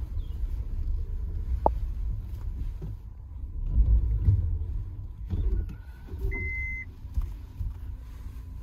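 Cabin sound of a Maruti Suzuki Jimny manoeuvring on a rough dirt track: low rumble of its engine and drivetrain, swelling about four seconds in. A single short high beep sounds about six seconds in.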